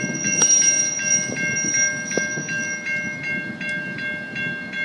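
Level crossing warning bells ringing in an even rhythm of about three strokes a second, warning road traffic that a train is coming, while a diesel locomotive runs at low speed underneath. A thin high whine sounds for about the first three seconds.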